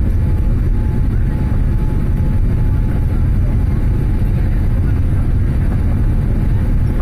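Steady, deep cabin noise of a Boeing 787-8 Dreamliner in the climb after take-off: engine and airflow noise heard from a window seat, even throughout.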